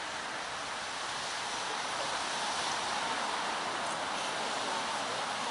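Steady wind rustling through the trees' autumn foliage, swelling slightly a couple of seconds in.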